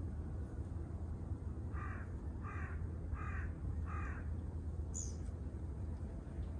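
A crow cawing four times in an even series, about two-thirds of a second apart, over a steady low rumble. A short high chirp follows about a second later.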